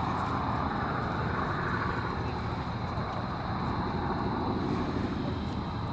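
Boeing B-17 Flying Fortress 'Sally B' flying over, her four Wright Cyclone radial piston engines giving a steady, rumbling drone that sinks slowly in pitch as she passes.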